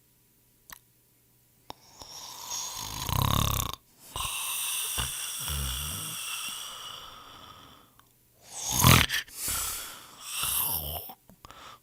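A person snoring. After a brief silence comes a rasping in-breath about two seconds in and a long out-breath. A short, louder snore follows near the end.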